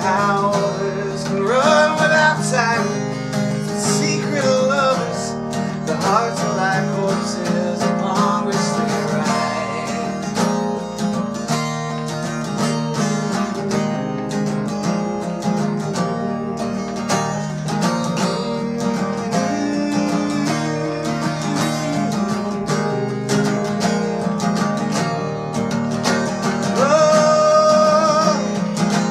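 Acoustic guitar strummed steadily through an instrumental passage of a folk song. The singer's voice comes in briefly a few seconds in, and holds one long note near the end.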